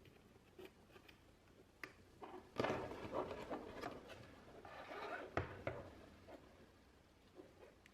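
Objects handled at close range: rustling with a few sharp clicks and taps, the rustle loudest about a third of the way in.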